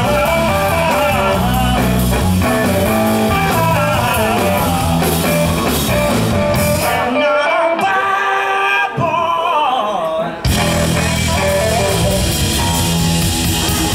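Live rock band playing electric guitar, bass guitar and drum kit, with a lead guitar line bending over the rhythm. About seven seconds in, the bass and drums drop out and the guitar carries on alone for about three seconds, then the whole band crashes back in together.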